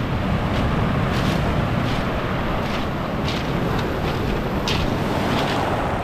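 Black Sea surf breaking on the shore, a continuous rush with short swishes every second or so, and wind rumbling on the microphone.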